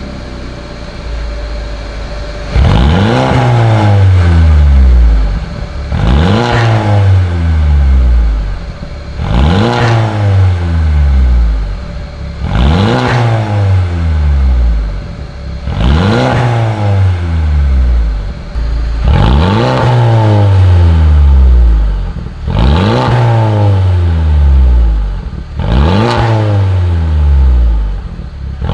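Mercedes-Benz A250's turbocharged four-cylinder engine being revved through a catless Fi Exhaust valvetronic system with the exhaust valve open. It is blipped about nine times, roughly every three seconds. Each rev rises sharply and then falls away as the engine drops back.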